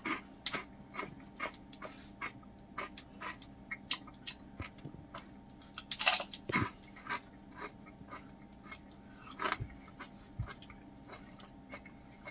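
A person chewing crunchy, freshly microwave-popped pork rinds: a run of crisp crunches, with louder bites about halfway through and again later on.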